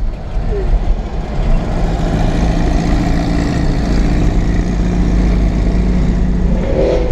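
Car engine running, a steady low drone with a noisy hiss over it.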